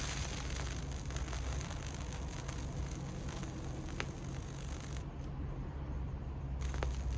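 Microwave oven transformer humming while its high-voltage output arcs across an LED board with a dense crackling hiss and occasional sharp snaps. The arcing cuts out about five seconds in and starts again about a second and a half later, while the hum goes on.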